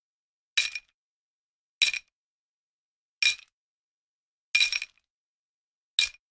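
Five short, bright clinks with a brief glassy ring, evenly spaced about one and a half seconds apart, each dying away within a fraction of a second; the fourth is a little longer, like a double hit.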